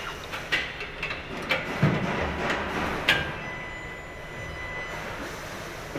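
Factory-floor noise: a steady hum and hiss with a faint whistling tone, broken by a few sharp knocks and clatters in the first half.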